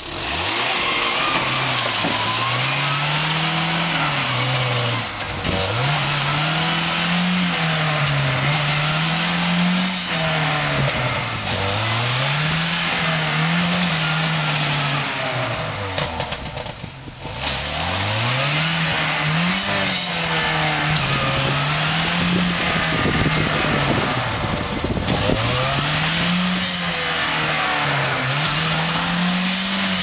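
VIS-23461 pickup's engine revving up and down again and again as the truck is bogged in the mud of a washed-out stream bed, wheels churning mud and water. The revs drop briefly about halfway through, then the revving resumes.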